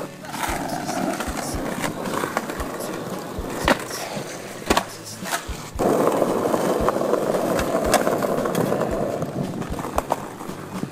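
Skateboard wheels rolling over brick paving, with several sharp clacks of the board hitting the ground. The rolling grows suddenly louder about six seconds in.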